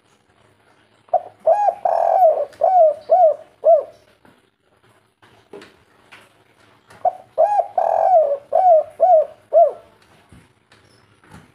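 Spotted dove (derkuku) cooing: two song phrases a few seconds apart, each a short opening coo, a longer drawn coo, then three short clipped 'kuk' notes, the 'kuk 3' song type.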